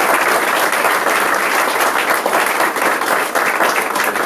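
A small audience applauding steadily, many hands clapping at once.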